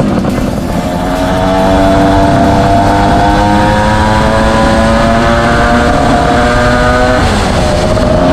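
Suzuki GT380 two-stroke three-cylinder engine running through Mizuno Motor ZES expansion chambers, accelerating under load with its pitch climbing slowly. About seven seconds in the pitch drops sharply as it shifts up a gear, then starts climbing again.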